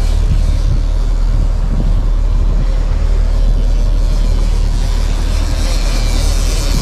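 A 52-foot sailboat's engine running steadily under way, a low even drone, with water and wind hiss over it.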